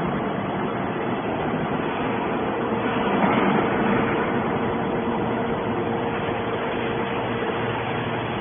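Hydraulic scrap metal baler running: a steady machine hum with a constant tone, over a rough mechanical noise that swells slightly about three seconds in.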